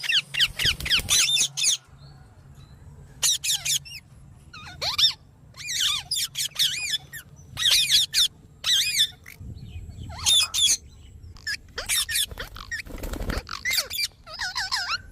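A parrot making bursts of shrill, squeaky calls, each burst a quick run of rising and falling squeaks, repeated with short pauses between them. A brief low rumble comes near the end.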